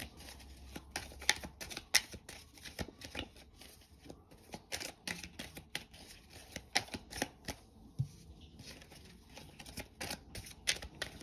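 A deck of tarot cards being shuffled by hand: a steady, irregular run of short card clicks and slaps.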